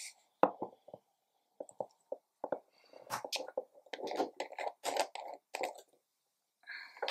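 The cap being twisted off a square glass bottle of Sailor Manyo Shirakashi fountain pen ink. There is a sharp click about half a second in, then a run of crunchy scraping and crackling clicks as the cap turns free.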